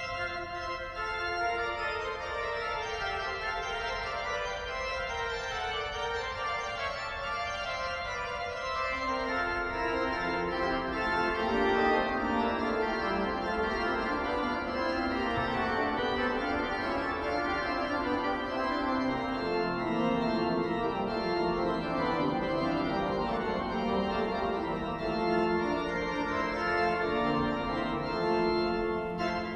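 Cathedral pipe organ playing sustained chords, with a lower part coming in about nine seconds in and a deeper bass line around twenty seconds.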